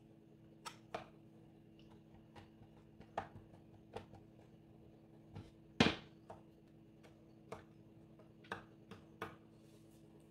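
Kitchen knife tapping on a plastic cutting board as it chops soft, peeled tomatoes. The taps are sharp and irregular, with one louder knock about six seconds in, over a faint steady hum.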